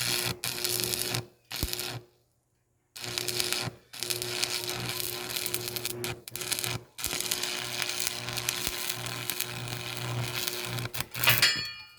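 Small plug-in Forney stick welder arcing with old rods: the arc crackles and sputters, catching and dying several times in the first few seconds, then runs for about four seconds before cutting out near the end. A steady electrical hum sits under the crackle while the arc is lit.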